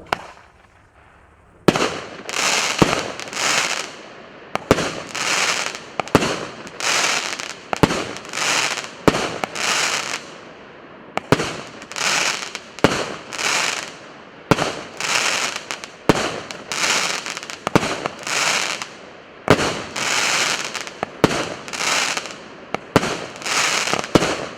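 Fireworks going off shot after shot, about one a second, each a sharp report followed by about a second of hiss.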